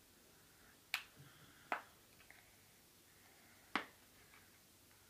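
Three sharp plastic clicks, about a second in, just under two seconds in and near four seconds: the snap-on back cover of a Vestel Venus V3 smartphone being pried off, its clips popping loose.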